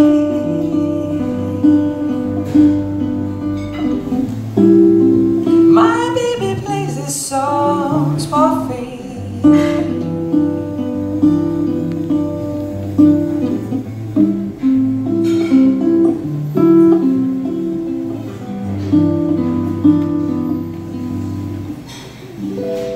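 Solo acoustic guitar fingerpicking a repeating closing pattern, with a woman's voice singing briefly a few seconds in. The guitar rings out and trails off near the end.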